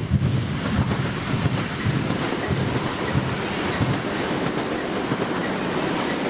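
Freight train wagons rolling through the level crossing, a loud steady rumble with repeated low thuds from the wheels crossing the rail joints.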